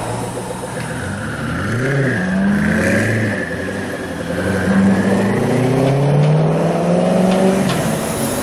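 Koenigsegg Agera's twin-turbo V8 revving: the engine note rises quickly and drops back about two seconds in, then climbs again as the car pulls away.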